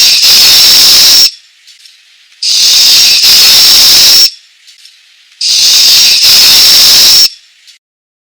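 Recorded snake hiss from a children's sound book's button speaker, played three times. Each long hiss lasts about two seconds, with short quiet gaps between.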